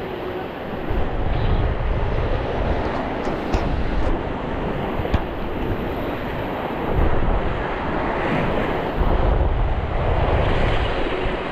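Wind buffeting the microphone in gusts over the steady wash of surf.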